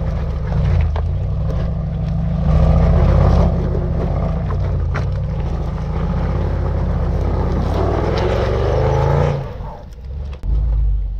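Range Rover Sport's engine working under load as the SUV climbs a slope of wet roots and rocks in low-traction mode, with a steady deep rumble. The engine note falls away sharply about nine seconds in.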